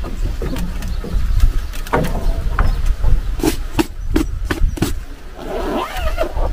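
Folding camp chair being collapsed and packed away, its metal frame giving a run of sharp clacks about two to five seconds in, with fabric rustling. A steady low rumble runs underneath.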